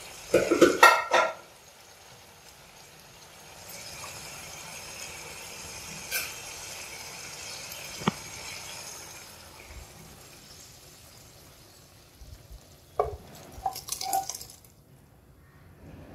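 A pan and spoon clatter, then a soft steady hiss from about four seconds in as the hot tomato masala is poured and scraped into the cooked rice and dal. A few spoon clinks against the pot come near the end.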